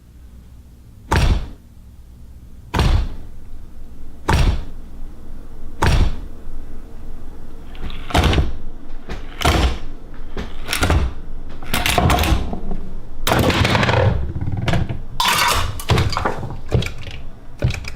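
Heavy thunks of an axe chopping. At first there is about one blow every second and a half, then from about halfway the blows come faster and more irregularly, mixed with crunching and breaking.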